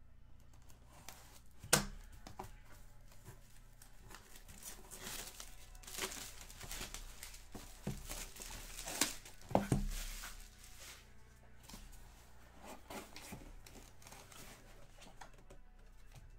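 Plastic packaging crinkling and tearing in hand as a jersey is unwrapped: scattered rustles and clicks, with a sharp snap about two seconds in and a louder burst of rustling around nine to ten seconds in.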